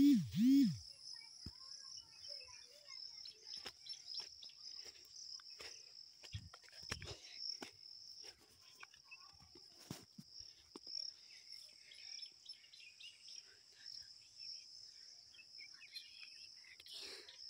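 Insects chirring steadily at a high pitch, with faint rustling and scattered footstep clicks. At the very start a person gives a short two-part hum.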